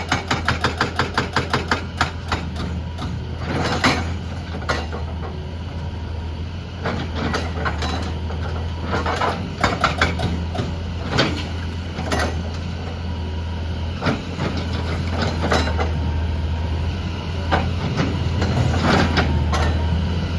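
Excavator's diesel engine running steadily with scattered clanks and knocks of rock. A rapid, even pounding stops about two seconds in.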